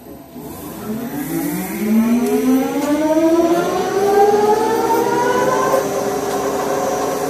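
CNC lathe spindle spinning up: a whine with several overtones that climbs steadily in pitch for about five seconds and then levels off at a steady speed.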